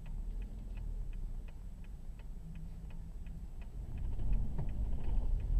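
Car's turn-signal indicator ticking steadily, about three ticks a second, over a low engine rumble that grows louder about four seconds in.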